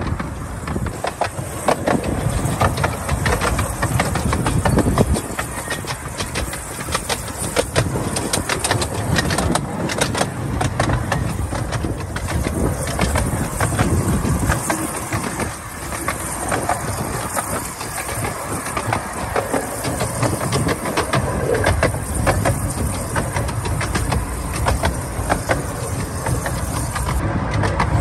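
A miniature railway train running on its track, its wheels clicking and rattling continuously over the rails.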